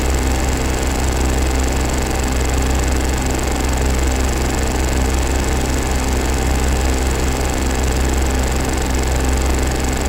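Harsh electronic noise drone from Noise Rumble noise-synth pedals run through a Korg Kaoss Pad KP3. It is a dense, steady wall of noise with a heavy low rumble, a thin high whistle on top and a fast stuttering flutter in the middle.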